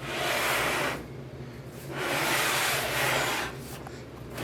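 Cardboard packaging rubbing and sliding against cardboard in two long scraping strokes, the first about a second long, the second about a second and a half.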